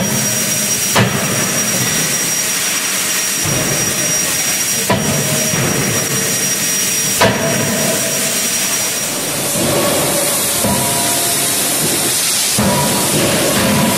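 CNC fully-hydraulic forging hammer striking a glowing billet in a closed die: four sharp blows, the first two a second apart, then two more over the next six seconds, over a steady loud hiss.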